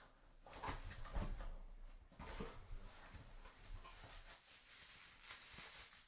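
A cardboard shipping box being opened by hand: irregular rustling and scraping of cardboard and packing material.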